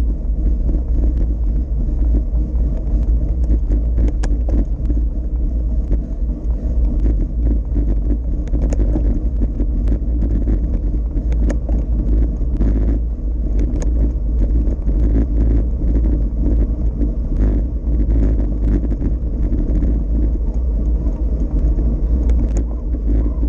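Wind buffeting a camera's microphone on a moving bicycle, a steady loud low rumble, with tyre noise on asphalt and scattered light clicks and rattles as the bike rolls over the road's sealed cracks.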